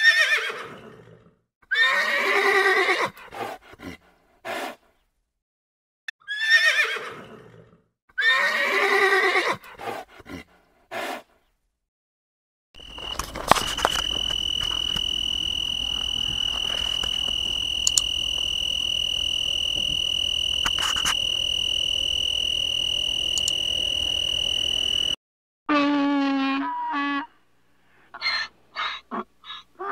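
Three animal sounds in turn. First, hippopotamus calls: a series of loud, falling, pitched honks a couple of seconds apart. Then crickets chirping in a steady, high-pitched trill for about twelve seconds, and near the end a donkey braying.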